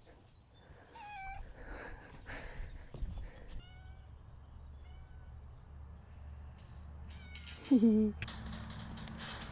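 A cat meowing a few times, short calls that fall in pitch, the loudest near the end.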